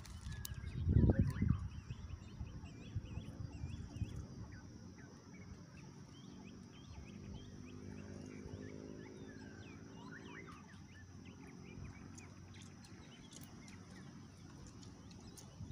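Small birds chirping over and over, with a low thump and rustle about a second in, and a low drawn-out drone with several pitched lines for about four seconds in the middle.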